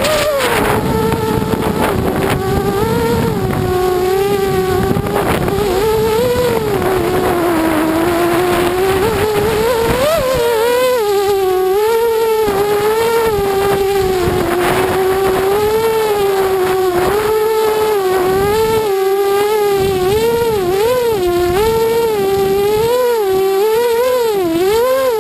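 ImmersionRC Vortex FPV racing quadcopter's brushless motors and propellers whining, as heard from the camera on board. The pitch keeps rising and dipping with the throttle, with several quick dips in the second half.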